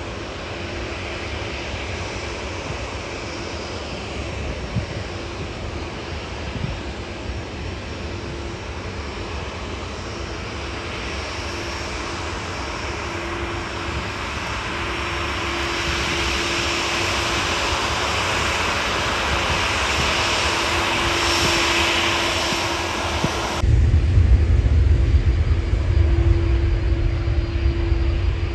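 Airbus A330 jet engines running as the airliner moves along the runway, the hiss and whine growing louder through the middle. Near the end the sound changes abruptly to a strong deep rumble.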